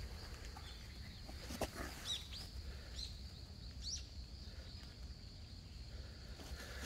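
Faint field ambience: a steady high insect trill, with a few short bird chirps about two and four seconds in.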